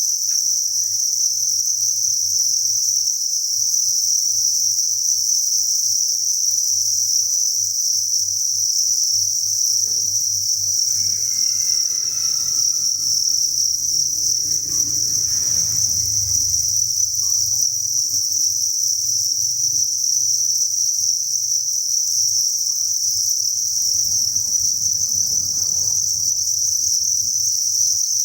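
A dense chorus of many farmed crickets chirping together, merging into one continuous high-pitched trill without pauses.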